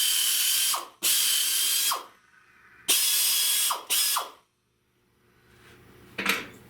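A handheld power cutting tool cutting through the car's rusty sheet-metal window corner in short bursts of about a second each, its whine falling away as the tool spins down after each burst. A short knock near the end.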